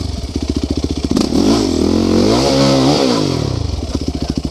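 Quad ATV engine revved up and back down once, then settling to an even idle near the end.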